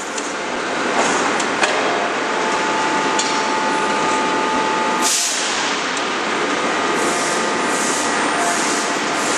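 Forge-shop machinery running at a hydraulic closed-die forging hammer and its forging manipulator: a steady loud rush of machine noise with repeated hissing bursts, a faint whine through the middle and a few light clicks. No heavy hammer blow stands out.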